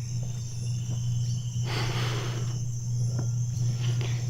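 Insects chirping steadily under a constant low hum, with a short rush of hiss about two seconds in.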